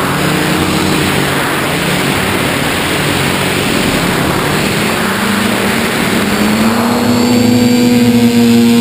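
Electric motors and propellers of an FPV model aircraft, heard through its onboard camera with heavy wind rush over the microphone. About two-thirds of the way in, the motor tone rises in pitch and then holds steady as the throttle comes up.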